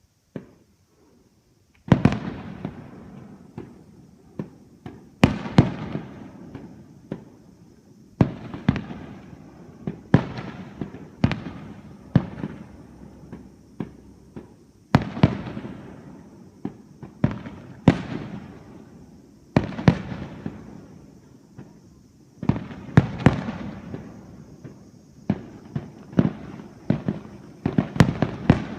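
Fireworks display: aerial firework shells bursting with sharp bangs every second or two, each trailing off in a rolling echo, after a single small pop at the start.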